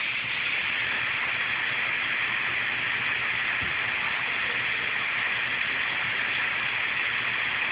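Laptop cooling fan running at full speed, a steady loud whoosh like a jet plane, with a faint low hum under it. The laptop is overheating and the fan is working hard to cool it.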